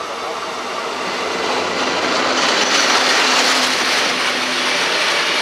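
SBB Cargo Re 420 electric locomotive and its freight train approaching and passing close by, the rail and wheel noise building from about a second and a half in and staying loud.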